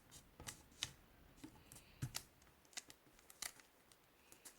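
Faint, crisp rustling and creasing of origami paper being turned over and folded by hand: a string of short, irregular clicks and crinkles.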